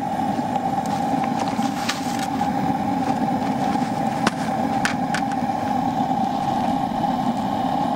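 Metal-casting burner furnace running steadily while it burns the PLA out of a mould: an even rushing noise with a steady hum in it. A few sharp clicks sound around the middle.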